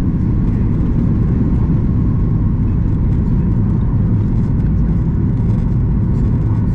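Steady, loud low rumble of engine and airflow noise heard inside the cabin of a Boeing 737 MAX 8 with CFM LEAP-1B engines.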